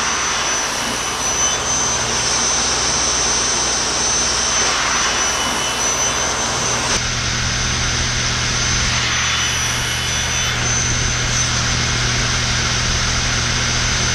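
A table saw runs steadily with a high whine, together with the rush of air from a hose blowing down at the blade, while a board is fed along the fence to cut off small pieces.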